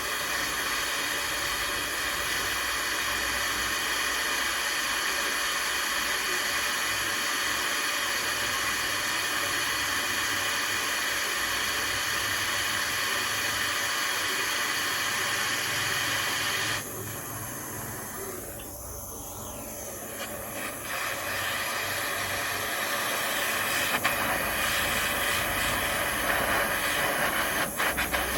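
Steady hiss of a gas heating flame playing on a steel steering rod to heat it for straightening. The hiss drops for a few seconds partway through, then comes back, with a few light clicks near the end.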